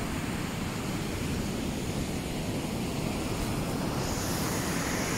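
Steady rushing of sea surf and wind, with wind rumbling on the microphone. A higher hiss comes in about four seconds in.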